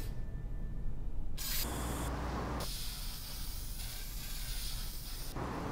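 Aerosol spray paint can spraying onto a wall: short hisses about a second and a half in, then one long spray of about three seconds that stops near the end.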